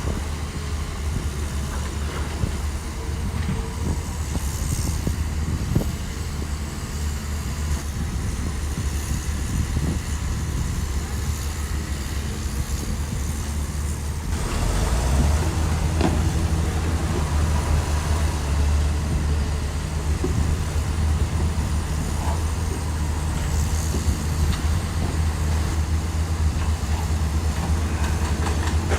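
A SHANTUI bulldozer's diesel engine running steadily with a deep drone, growing louder and heavier about halfway through.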